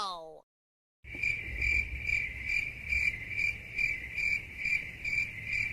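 Crickets chirping steadily at about two to three chirps a second, starting about a second in: the stock comedy 'crickets' effect for an awkward silence. Just before them, the tail of a long, falling pitched cry dies away, followed by a short pause.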